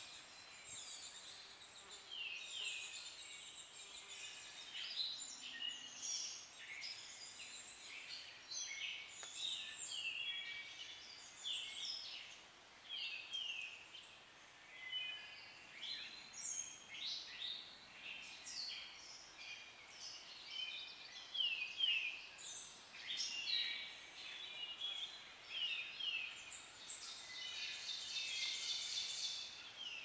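Forest songbirds singing and calling, many short whistled notes that often slide downward, overlapping one another over a faint steady hiss. Near the end a fast, dense trill joins in.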